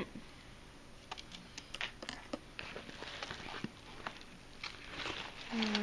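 Faint rustling and scattered small clicks of small items being rummaged through and handled, with a woman's voice starting near the end.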